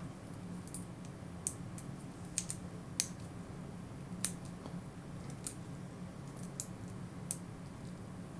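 Small screwdriver working a tiny screw in a plastic toy robot figure: scattered light clicks and ticks of metal on plastic, about a dozen at irregular intervals, over a faint steady hum.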